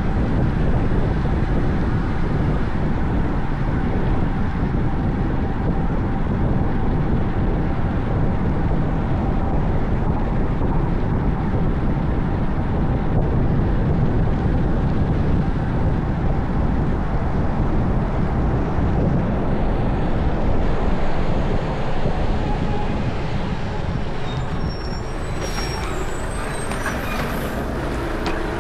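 Steady rush of wind on the microphone and road noise from riding a bicycle at speed on a road with traffic. It eases a little near the end, where a few short high chirps come in.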